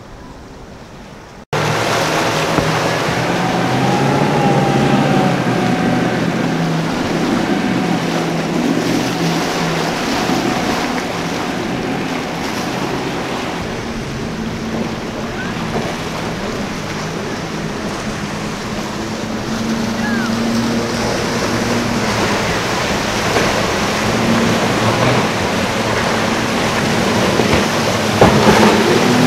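Outboard motors on passing boats running under power through choppy water, a steady engine drone over waves, spray and wind noise. It cuts in suddenly about a second and a half in and grows louder near the end.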